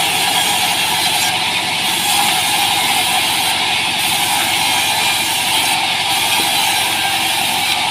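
Band sawmill running steadily, its blade ripping a small board into strips with a loud, continuous mechanical noise. The high hiss eases briefly about every two seconds.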